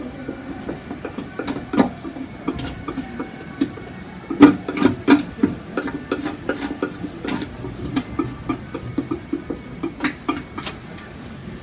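Palette knife tapping and scraping on a hard wood panel as cold wax and oil paint is worked on: irregular sharp clicks, loudest about four to five seconds in, with a quicker run of taps after that.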